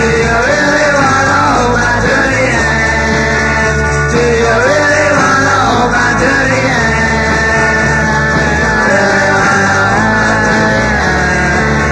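Rock song with a singing voice, loud and steady.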